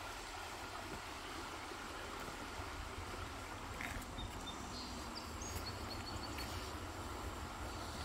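Steady outdoor ambience beside a shallow woodland creek: a low rumble under a soft hiss, with a few faint, short, high bird chirps about halfway through.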